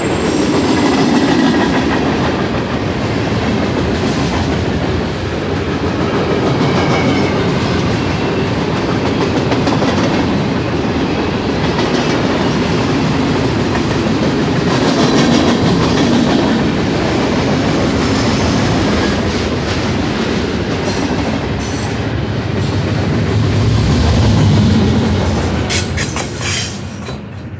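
Freight train cars rolling past close by: a steady rumble of steel wheels on rail with clacking over the track. The last car passes near the end and the sound falls away.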